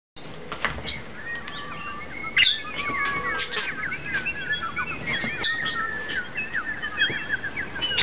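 Budgerigar warbling: a continuous chatter of quick chirps and squeaky twitters, with a few sharp clicks mixed in.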